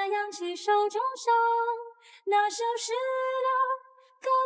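Background song: a woman singing a slow melody, holding long notes.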